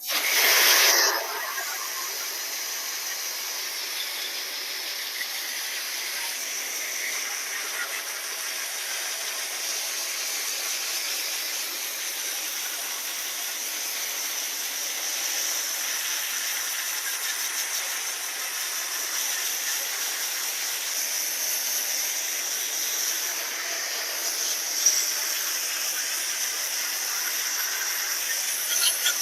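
Garden hose spraying water onto an air conditioner condenser's coils, rinsing off the foaming coil cleaner: a steady hiss that starts abruptly, loudest in the first second.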